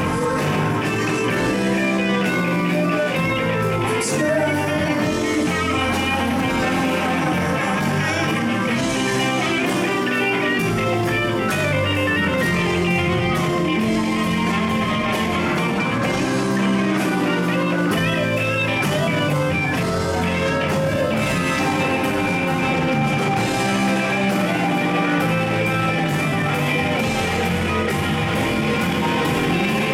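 Live blues-rock band playing a slow blues: electric guitars, drums and organ.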